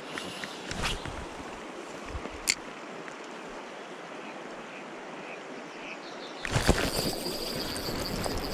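Steady rush of a shallow river's flowing water, with a few short sharp clicks in the first few seconds. About six and a half seconds in the rushing grows louder.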